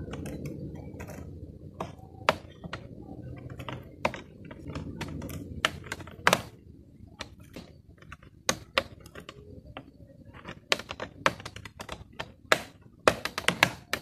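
Sharp plastic clicks and taps from a Mazda 3 side-mirror cap as its retaining clips are pushed in with a pick tool and the cap is pried loose, the clicks coming faster near the end.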